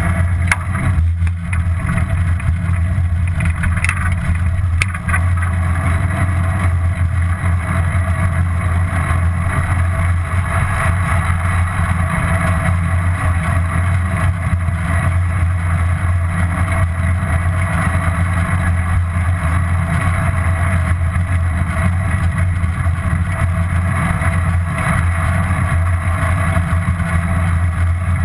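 Steady wind rush and low rumble on a GoPro's microphone while riding a bicycle.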